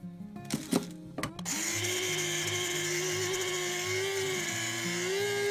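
A few sharp clicks, then about a second and a half in an electric coffee grinder starts and runs steadily, a loud motor whine over a dense whirr as it grinds dry instant noodles into fine flour. Its pitch rises a little near the end.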